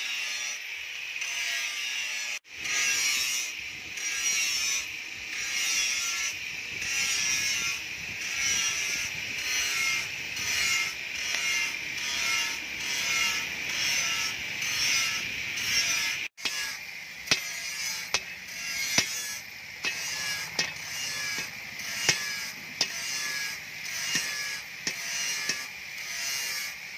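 Hand-cranked forge blower whirring in an even rhythm of about one turn a second, its air noise swelling and fading with each turn as it feeds the coal fire. From a little past halfway, sharp metallic clicks join in every second or so.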